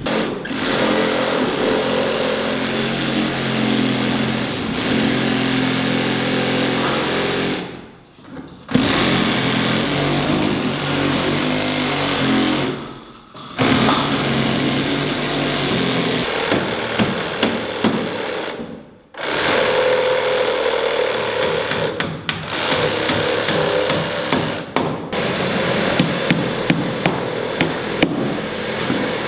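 Power saw cutting through wood framing in several long bursts, its motor pitch shifting as it bites, with short breaks between cuts.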